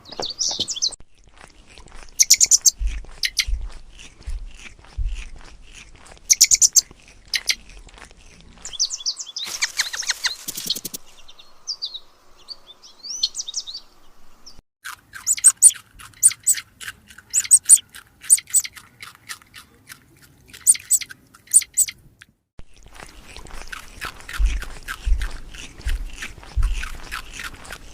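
Birds chirping and trilling in quick, high-pitched runs, in several short clips that cut in and out abruptly.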